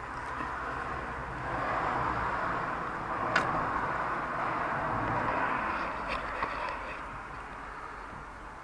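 A road vehicle passing by, its noise swelling over a few seconds and then fading away, with a single sharp click about three and a half seconds in.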